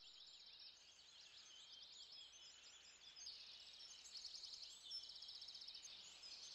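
Faint chirping of many small birds, with a steady high trill joining in about three seconds in.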